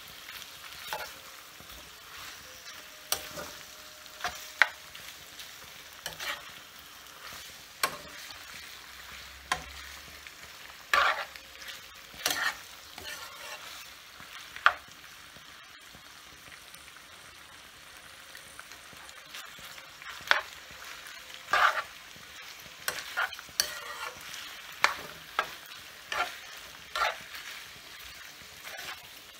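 Metal spoon stirring and tossing bowtie pasta in a nonstick frying pan, with irregular scraping clinks of the spoon against the pan over a steady sizzle of frying.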